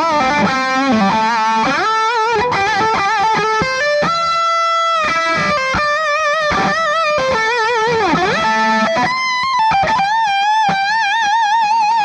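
Gibson Les Paul Special double-cut electric guitar with P-90 soapbar pickups, played through a Soldano Astro 20 amp. It plays a single-note lead line with wide vibrato, string bends and quick runs. It ends on a long held note with wide vibrato.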